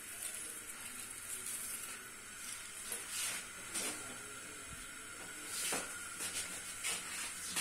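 Steady kitchen hiss, with a few soft taps and rustles of garlic cloves being handled on a plate.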